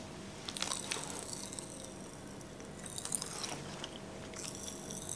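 Popping candy crackling in a closed mouth: faint, irregular tiny pops and crackles that come in clusters, with a faint steady hum behind. The popping is slight.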